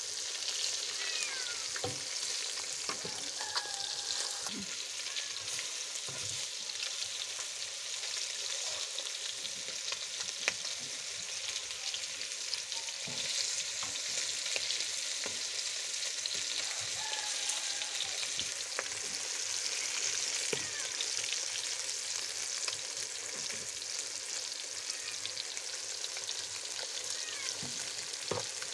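Fish pieces frying in hot oil in a pan: a steady sizzle with scattered sharp pops.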